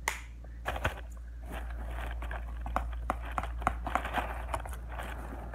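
Slime ingredients being handled and stirred in a clear plastic tub: irregular light clicks and taps of plastic, with a scraping rustle that builds after the first second or so.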